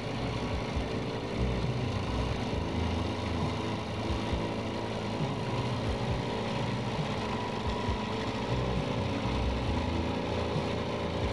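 Small boat's motor running steadily at low speed, a constant even hum with an uneven low rumble underneath.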